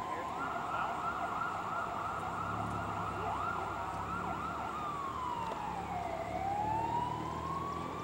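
Emergency vehicle siren wailing, with a run of quick warbles over the first few seconds, then a slow sweep down in pitch and back up. A low steady hum lies underneath.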